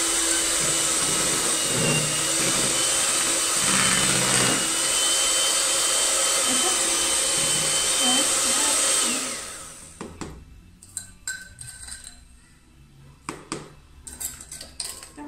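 Electric hand mixer beating quinoa cake batter in a plastic bowl: a steady whir with a thin high whine, switched off about nine seconds in. After it stops, a few light clicks and knocks.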